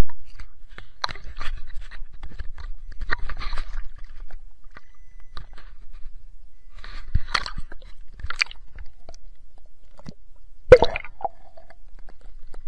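Irregular splashing and crackling of water as a black bass thrashes in a landing net held in the water, in scattered bursts with one louder knock near the end.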